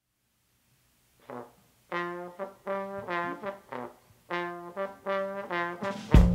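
A live band's horn section, trombone to the fore, plays a punchy phrase of short, separate notes. About six seconds in, a loud drum hit with bass lands as the full band comes in.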